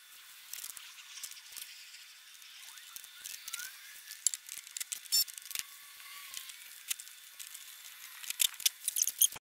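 Faint, irregular light clicks, taps and rattles of small tools and hardware being handled under a car's front bumper, with a few sharper clicks about five seconds in and near the end.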